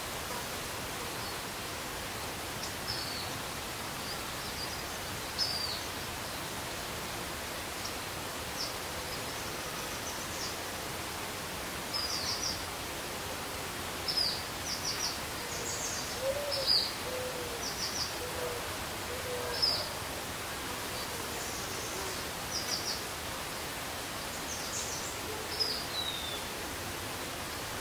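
Outdoor woodland ambience: a steady hiss of background noise with short, high chirps scattered through it, more frequent in the second half, and a few faint low hoots around the middle.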